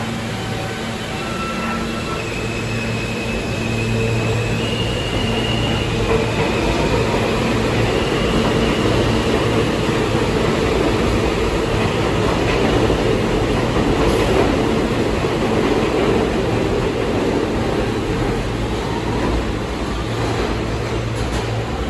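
R160 subway train pulling out of the station: a series of short electric tones stepping up in pitch as it starts to accelerate, then a growing rumble of the cars running along the rails, loudest about halfway through and easing off near the end.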